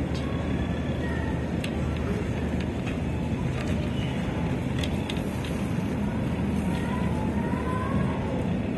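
Shopping cart rolling over a tiled supermarket floor: a steady low rumble with a few light clicks and rattles, over a constant low store hum. Faint voices in the background.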